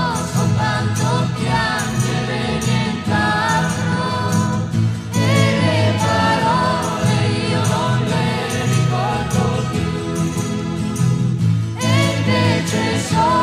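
1969 Italian pop record playing: an orchestral arrangement with voices singing the melody over a steady percussion beat.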